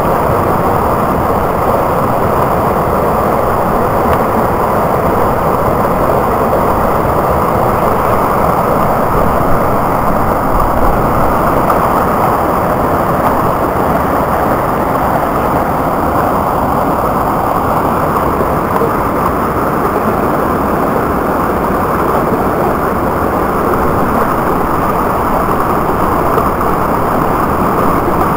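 Fast brook water rushing over rocks and ice in a loud, steady, low-pitched rush.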